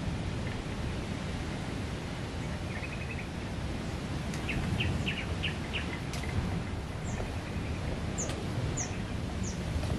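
Small birds chirping over a steady low rush of surf and wind: a short trill about three seconds in, a quick run of chirps around five seconds, then high, short falling notes near the end.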